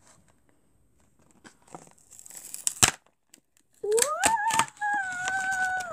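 Plastic blister packaging and card backing of a toy being pulled and torn open by hand, crinkling and crackling, with one sharp snap about three seconds in. For the last two seconds a voice hums a long note, gliding up and then holding it, over more crinkling.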